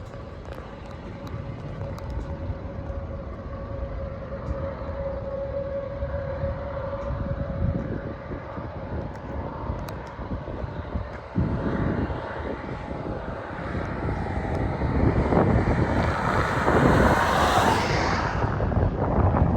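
Storm wind roaring and buffeting the microphone in gusts, building to its loudest rush near the end. A steady hum is heard under it in the first half.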